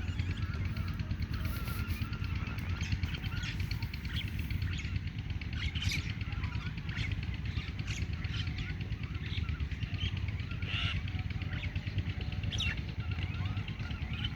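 A flock of common mynas calling, with many short calls overlapping in a constant chatter, over a steady low rumble.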